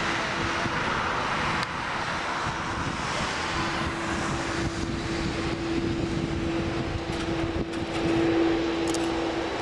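Boeing 787-8 airliner's GEnx turbofan engines running at low thrust as it taxis. A steady rushing drone carries one constant tone, swelling a little about eight seconds in.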